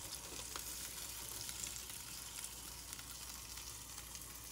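Linguiça sausage and beef steak frying in a nonstick pan: a quiet, steady sizzle of the fat with small scattered crackles and pops.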